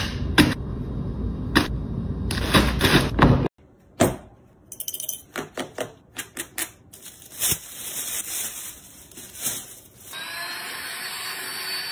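A run of clicks, taps and plastic rustling as sneakers and their accessories are handled and bagged. For the first three and a half seconds a steady rushing noise lies under the clicks and cuts off abruptly. A new steady whir with a faint high whine starts near the end.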